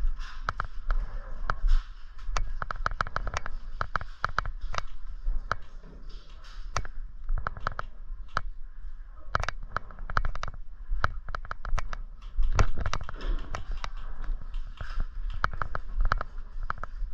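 Airsoft guns firing: a running series of sharp cracks and clicks, some single shots and some in quick bursts, over a steady low rumble.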